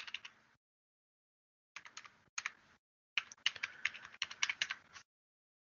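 Typing on a computer keyboard: quick runs of keystrokes in three bursts, the longest from about three to five seconds in, stopping about five seconds in.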